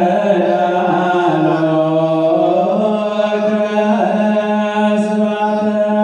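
Ethiopian Orthodox liturgical chant: several voices chanting together in long, drawn-out held notes with no break.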